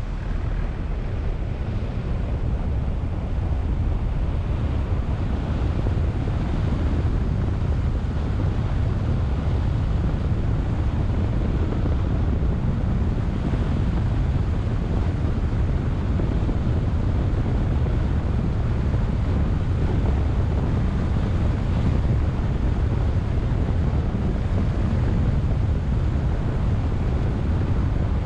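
Steady low rumble of wind buffeting a car-mounted camera's microphone, mixed with the road noise of the car driving along a paved lane.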